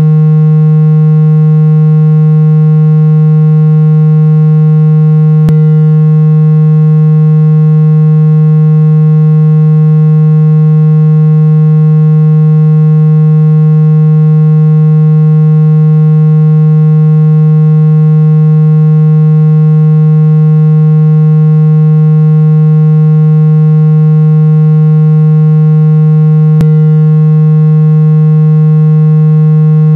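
Synthesized water-ejection tone for clearing water from a phone speaker: one loud, steady low-pitched tone held without a break, buzzy with many overtones. It is meant to make the speaker cone vibrate hard and push trapped water out of the grille.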